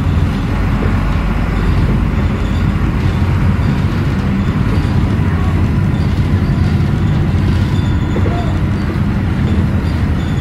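Interior noise of a Volvo B9S articulated bus under way: its Volvo D9B diesel engine and Voith automatic gearbox running steadily, with a low road rumble.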